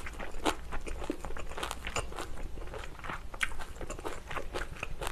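Close-miked chewing of Korean side dishes and rice: irregular crisp crunches and bites in quick succession.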